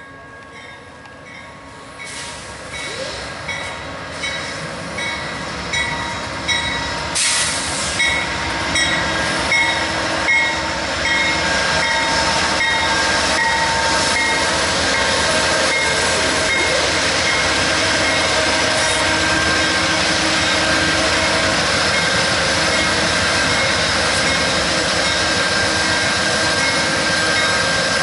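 Amtrak GE Genesis P42DC diesel locomotives pulling in alongside, growing louder as they come close, with a bell ringing about twice a second. There is a brief hiss about seven seconds in, and then the engines run steadily and loudly as they stand abreast.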